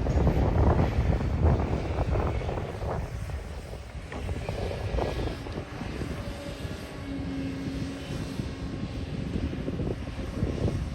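Heavy diesel machinery, an excavator and dump truck, running and working. The engine noise is loudest in the first few seconds, eases off through the middle, and builds again near the end. A short steady whine sounds about two-thirds of the way through.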